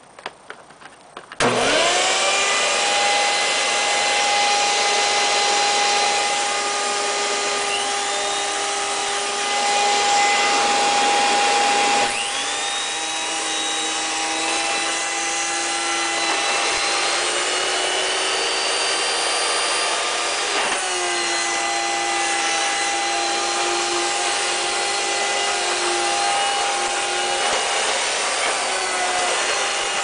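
Hoover WindTunnel upright vacuum cleaner switched on: a couple of light clicks, then about a second and a half in the motor starts suddenly, its whine rising in pitch as it spins up and settling into a steady high whine. About twelve seconds in the pitch shifts and the level dips a little, and it runs on steadily.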